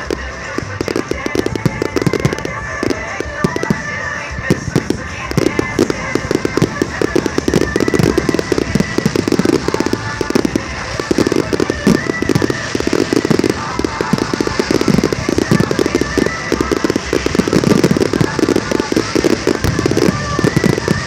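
Fireworks shells bursting in a dense, rapid barrage of bangs and crackles, with music playing alongside.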